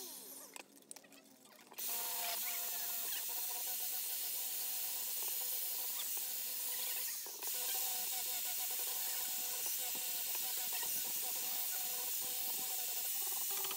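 A small angle grinder starts about two seconds in and runs steadily, a hissing grind over a steady whine, as it works the steel of a knife blade. The sound dips briefly about seven seconds in.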